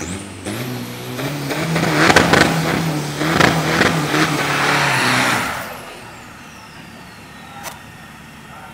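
Isuzu diesel pickup doing a burnout, engine held at high revs and the rear tyre spinning with a loud hiss. It lasts about five and a half seconds and cuts off suddenly, then a high whine falls away in pitch as the engine drops back.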